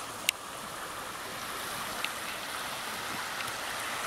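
Swollen creek in flood, rushing steadily, its water running high after snowmelt and heavy rain. A sharp click sounds near the start, and a fainter one about halfway through.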